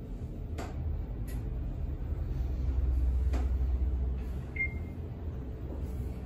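Schindler elevator car travelling upward: a low hum and rumble of the ride that swells a couple of seconds in, a few light clicks, and one short high beep about four and a half seconds in.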